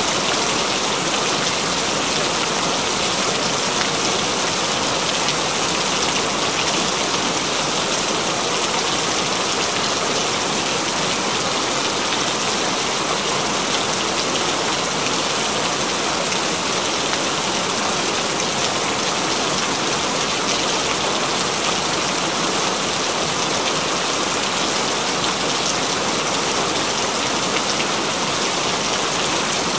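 Steady rain falling, an even hiss of countless drops with no let-up.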